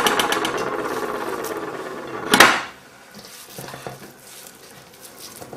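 Stainless steel mixing bowl knocked and ringing, the ring fading over about two seconds, then a second sharp knock against the bowl. After that come quieter sounds of hands working minced beef in the bowl.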